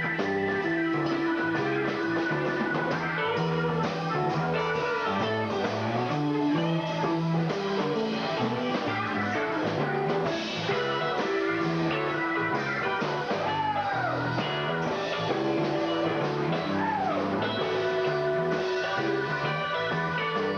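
A rock band playing live in a blues-rock jam, with an electric guitar lead bending notes over bass and drums.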